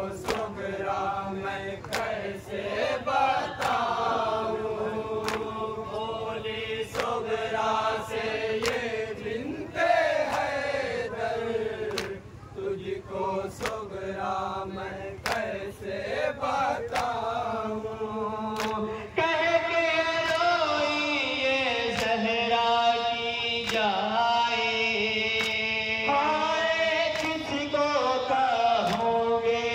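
Men chanting a nauha, a Shia lament, in unison, with sharp chest-beating (matam) slaps keeping time about once a second. About two-thirds of the way in, the sound changes abruptly to a closer, brighter lead voice singing the nauha through a microphone, with the slaps still keeping time.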